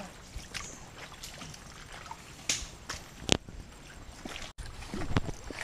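Someone moving on foot through mangrove mud and shallow water: scattered squelches, splashes and clicks from roots and twigs, with one sharp snap a little past three seconds.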